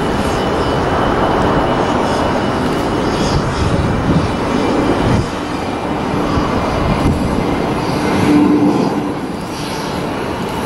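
Jet airliner engine noise: a loud, steady rush with no break.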